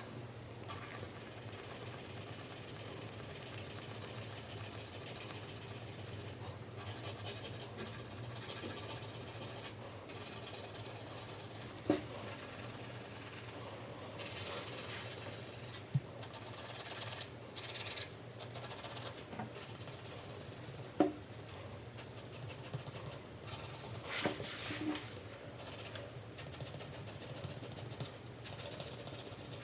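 4B graphite pencil shading on drawing paper: continuous scratchy back-and-forth strokes with a few brief pauses. A few short knocks stand out above the scratching.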